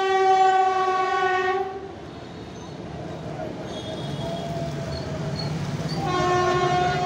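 Indian Railways WAP-7 electric locomotive's horn blowing for about two seconds as the train crosses the bridge. It is followed by the low rumble of the passenger coaches rolling over the bridge, and the horn sounds again about six seconds in.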